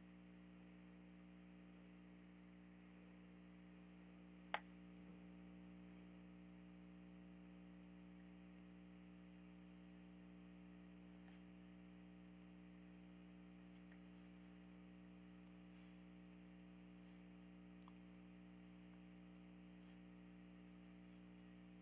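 Near silence with a faint steady electrical hum, broken by one sharp computer-mouse click about four and a half seconds in and a fainter click near the end.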